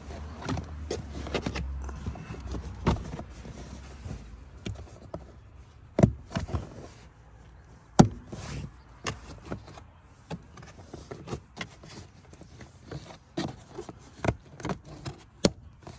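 A stiff, rubbery TPE all-weather floor mat being laid into a pickup truck's footwell and shifted into place, with scattered knocks and scrapes. Sharp clicks come as it is snapped down onto the plastic floor anchors, the loudest about six and eight seconds in.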